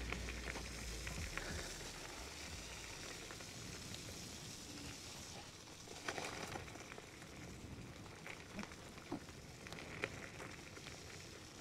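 Electric scooter tyres rolling over a wet dirt and gravel trail: a steady crackling hiss with scattered small clicks and knocks from stones and bumps, and a low rumble in the first few seconds.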